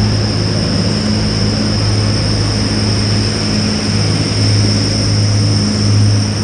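Grand Central Class 180 Adelante diesel multiple unit's underfloor diesel engines giving a steady low drone as the train moves slowly past, with a steady high whine over it.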